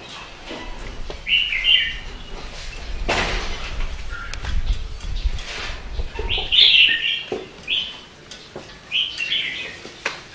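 Birds chirping in short bursts of high notes, repeated about four times, with a rustling handling noise a few seconds in.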